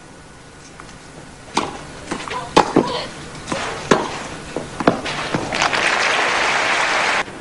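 Tennis rally on a clay court: racket strikes on the ball about once a second, with softer knocks between them, and the crowd breaks into applause near the end.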